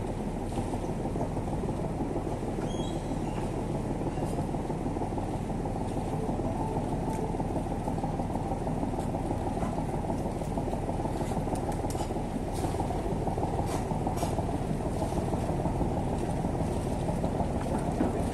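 An engine idling steadily, a low rumble, with a few faint ticks and clicks over it.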